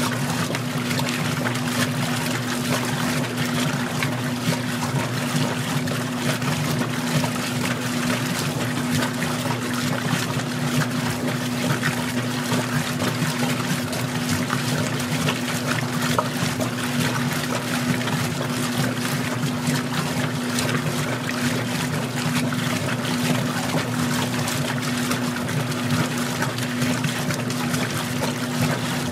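Magic Chef compact washing machine agitating during its rinse: a steady motor hum with water churning and splashing in the tub.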